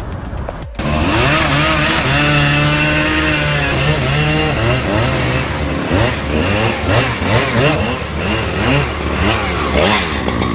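An engine running, steady at first and then revved up and down repeatedly, its pitch rising and falling in quick swells.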